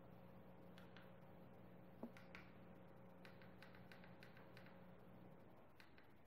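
Near silence with faint small clicks of remote-control buttons being pressed, a quick run of them in the middle, over a low steady hum that stops about five seconds in.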